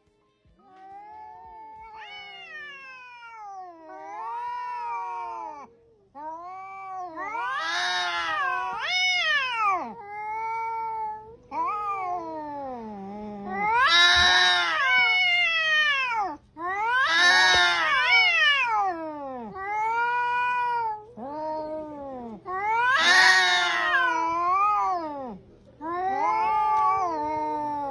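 Angry cat yowling: a series of long, wavering howls that rise and fall in pitch, one after another, growing louder from about six seconds in.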